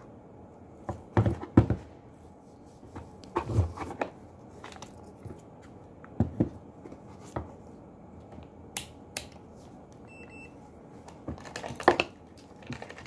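Knocks and clicks of a digital multimeter and a plastic contactor being handled on a desk, with one short electronic beep from the multimeter about ten seconds in.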